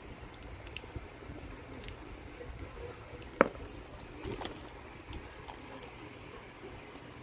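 Slime being pressed and stretched by hand, giving scattered small clicks and pops, with one sharper pop about three and a half seconds in.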